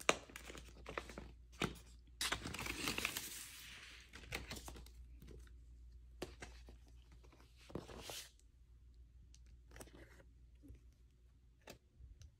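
Paper record inserts rustling and crinkling as they are picked up and handled, with a sharp tap at the start, a longer rustle about two to four seconds in, another near eight seconds, and a few light taps.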